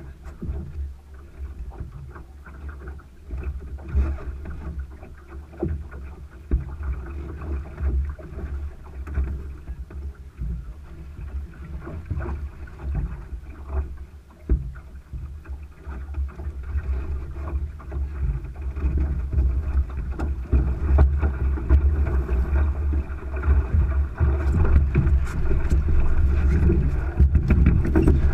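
A Thistle sailing dinghy under way: wind buffeting the cockpit microphone over the rush of water along the hull, with scattered small knocks. The rumble grows louder through the second half.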